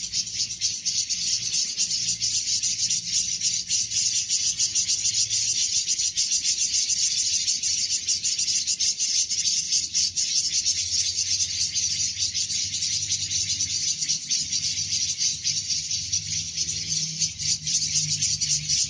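Continuous chorus of stridulating insects, a dense, rapid, high-pitched buzzing trill.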